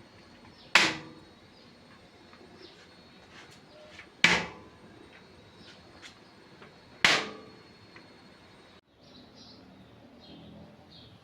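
Three sharp knocks of hard objects, each ringing out briefly, about three seconds apart, followed near the end by faint small clicks.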